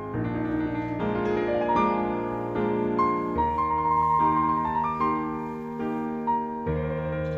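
Piano music: a slow melody played over sustained chords, with the chord changing about three and a half seconds in and again near the end.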